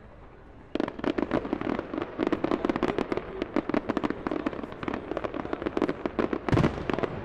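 Fireworks going off: a dense run of rapid bangs and crackles starts about a second in and keeps going, with a heavier boom near the end.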